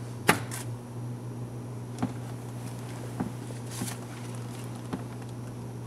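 Paper dollar bills being counted out by hand: a handful of short, sharp clicks and soft rustles, spaced irregularly, over a steady low hum.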